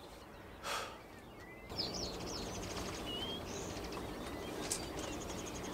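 Small songbirds twittering, with short whistled chirps and quick repeated high notes, over a steady background rustle. There is a brief rustle about a second in and a single click near the end.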